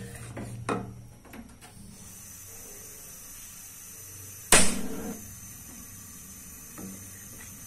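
Cooking utensils clattering against a metal karahi while food fries in it: a few light knocks in the first two seconds, then one sharp, loud knock about four and a half seconds in, over a steady frying hiss.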